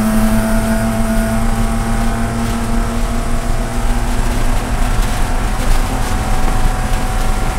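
BMW Spec E46 race car's 3.0-litre inline-six at full throttle, heard from inside the cockpit, its steady engine note climbing slowly in pitch as the car gains speed on a straight.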